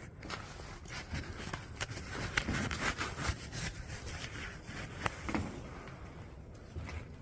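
Footsteps and scraping on rough ground, with scattered clicks and rustles that are busiest around the middle.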